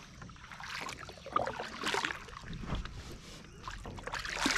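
Double-bladed kayak paddle stroking through calm lake water, the blades dipping and splashing in turn, roughly every half second.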